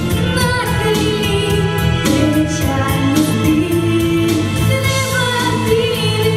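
A girl singing a song into a handheld microphone over accompanying music with a steady beat, holding long notes.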